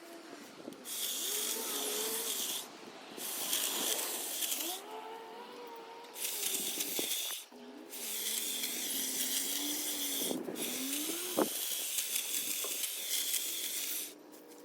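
Ego cordless multi-tool with a hedge trimmer attachment running in five bursts of one to three seconds, a hissing buzz with a steady high whine, stopping briefly between bursts.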